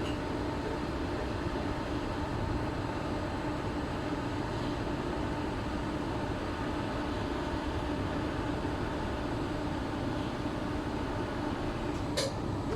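Steady hum of running machinery with a faint constant tone, and a single sharp click near the end.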